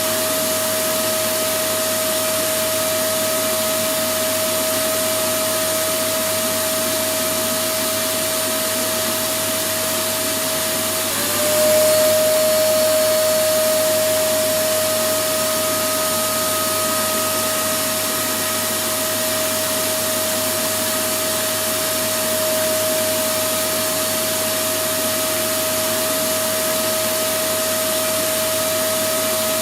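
Electric vacuum cleaner running steadily: a constant rushing hiss under a steady motor whine. About eleven seconds in the whine dips briefly and the sound gets a little louder for a few seconds before settling.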